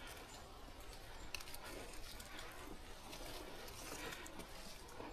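Faint rustling with a few scattered light clicks and crunches, over a steady low rumble of wind on the microphone.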